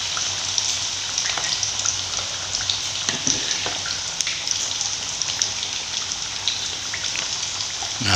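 Cubed potatoes deep-frying in hot oil in a wok: a steady sizzle with many small scattered crackling pops.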